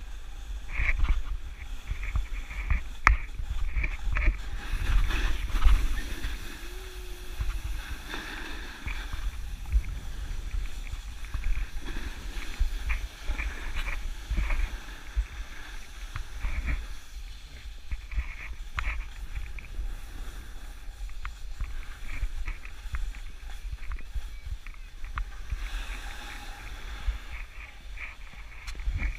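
Low rumble of wind and movement on an action camera's microphone, with irregular knocks and scrapes throughout.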